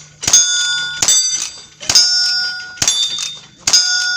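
Rapid shotgun fire at steel knockdown targets: about five shots, a little under a second apart, each followed by the bright, fading ring of a struck steel plate.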